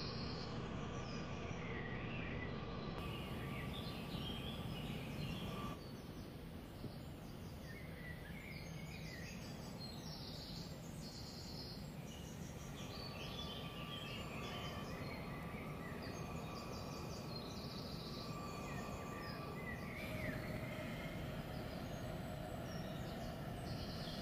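Steady background noise with birds chirping and insects calling in short, regularly repeated pulses.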